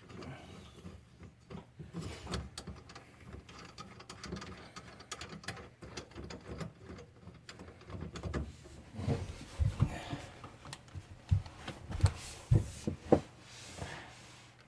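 Scattered clicks, scrapes and knocks of a Phillips screwdriver and metal mounting hardware being worked, as the screws of a garbage disposal's sink-flange mounting ring are tightened. There are several louder low knocks in the second half.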